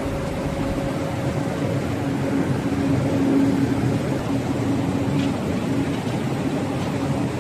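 Flat glass tempering furnace line running: a steady industrial drone with a constant low hum.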